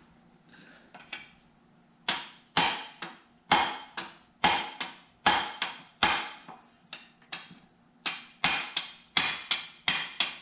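Hammer blows on a steel punch set against the countershaft parts in an Allis-Chalmers 5015 garden tractor's transaxle case. The blows are short, sharp metallic strikes, beginning about two seconds in and coming roughly two a second, often in pairs.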